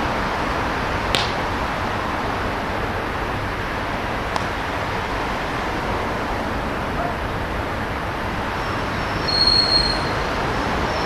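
Steady outdoor background noise with two short sharp clicks, about a second in and past four seconds, and a brief high squeal near the end.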